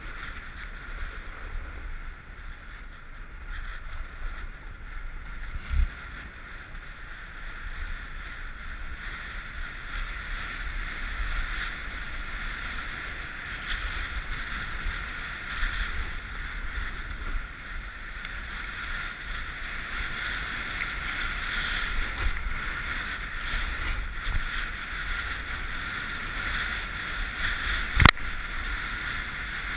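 Snowboard sliding and carving over groomed snow, a steady scraping hiss with low rumble, with wind on the helmet-camera microphone. There is a thump about six seconds in and a sharp click near the end.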